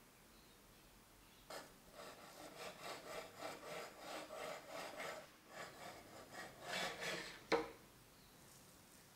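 A long knife sawing back and forth through a soft poppy seed sponge cake in quick scraping strokes, about three a second, pausing briefly midway, then a single sharp knock near the end.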